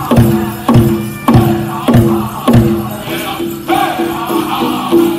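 Powwow drum group playing a chicken dance song: a big drum struck at a steady beat of about one and a half strokes a second, with the singers' voices and the jingling of dancers' bells over it.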